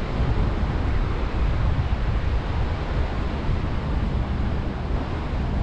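Wind noise on the microphone over the steady wash of ocean surf.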